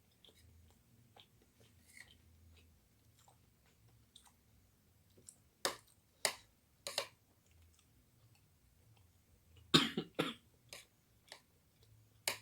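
A person eating: scattered sharp clicks and mouth sounds, then a short cough in two quick bursts about ten seconds in.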